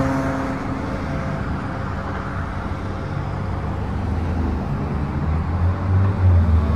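Road traffic passing on a busy street, a steady rush of tyres and engines, with a vehicle's low engine hum growing louder near the end.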